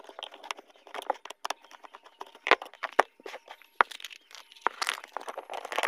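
Irregular clicks, taps and crackles of a plastic torch casing being pried apart and handled after its screws are out. There are a few louder sharp snaps in the middle and denser crackling near the end.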